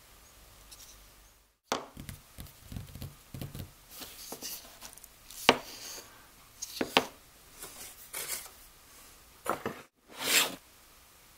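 Hands handling an old, split wooden screwdriver handle: a run of scrapes, rubs and sharp clicks, with a longer scrape near the end.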